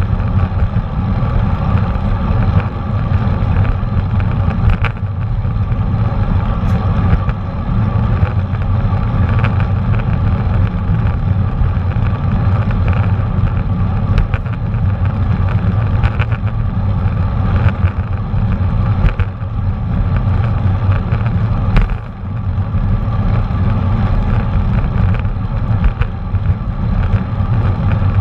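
Steady low rumble of wind buffeting and tyre and road noise from riding a bicycle, picked up through a GoPro Hero 4 Black's microphone, with a few light clicks.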